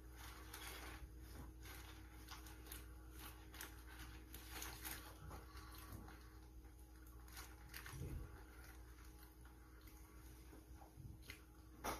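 Faint rustling and crinkling of a paper food wrapper being handled, in many small irregular clicks, with a soft thump about eight seconds in and a sharper click near the end.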